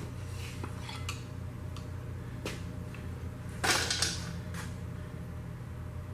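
Metal tools and engine parts clinking during an engine teardown: a few light clicks, then one louder clattering rattle about three and a half seconds in. A steady low hum runs underneath.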